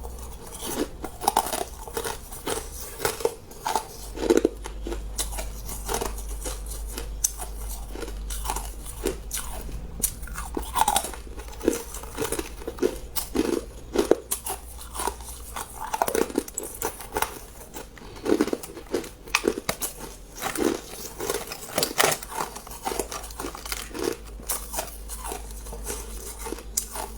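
A person biting into and chewing hard ice close to the microphone: a dense, irregular run of sharp, crackling crunches, several a second.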